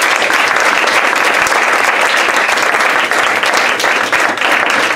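A small group of people applauding, clapping their hands in a dense, steady patter.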